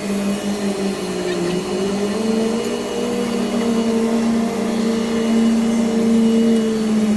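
Large-diameter tube mill running: a steady machine hum whose pitch wavers slightly.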